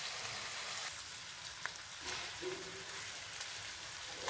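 Pork belly pieces sizzling in a sticky lemongrass-chili sauce in a nonstick frying pan, a steady hiss. Wooden chopsticks stirring the meat click against the pan a few times, the loudest click about two seconds in.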